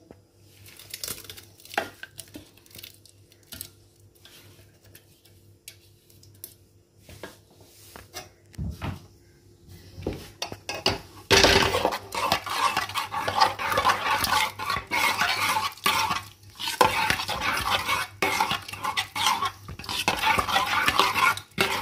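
A spatula scraping and tapping masala paste out of a steel grinder jar gives a few scattered clinks. From about eleven seconds in, a steel spoon stirs the paste into dal in a pressure cooker, scraping and clattering against the pot without a break.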